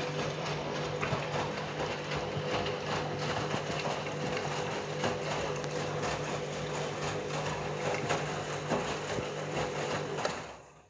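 Candy washing machine running during a deep rinse, its motor giving a steady hum over a rushing, swishing noise, then dying away quickly near the end.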